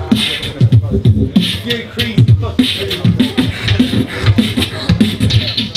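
Amplified beatboxing into a handheld microphone: a fast, steady rhythm of vocal kick-drum thumps with sharp snare and hi-hat clicks.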